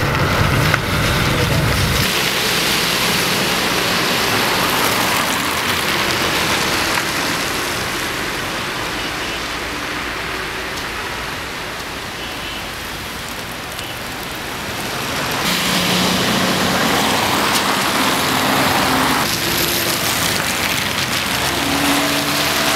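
A low vehicle rumble for the first two seconds cuts off abruptly. Then comes a steady hiss of traffic on a wet, slushy road, fading a little in the middle and rising again near the end.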